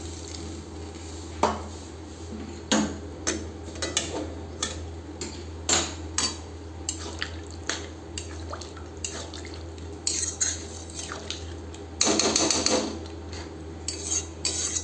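Metal spatula clinking and scraping against a metal kadai as a fish-head and rice curry is stirred in its cooking liquid, in scattered irregular knocks over a steady low hum. A longer, louder rush of noise comes about ten to thirteen seconds in.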